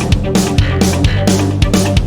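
Background rock music with electric guitar, bass and a driving drum beat.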